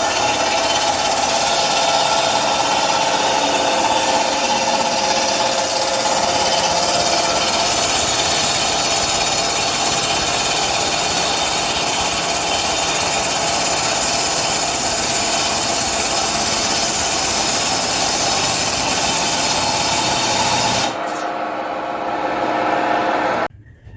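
A power tool running loudly and steadily; about 21 seconds in it drops to a lower level, and it stops shortly before the end.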